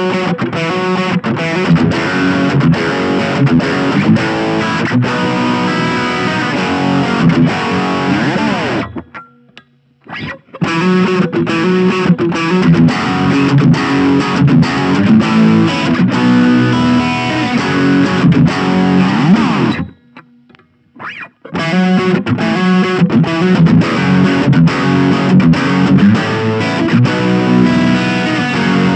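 Electric guitar, a PRS Custom 22, played through the overdrive channel of a Blackstar Fly 3 mini amp: a distorted riff in three passages of about nine seconds each, with short breaks between them. The first two passages end in a sliding note.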